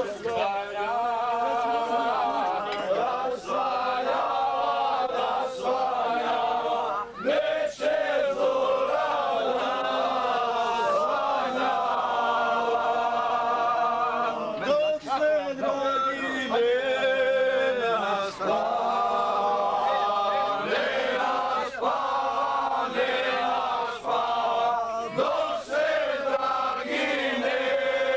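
A group of men singing together, holding long drawn-out notes.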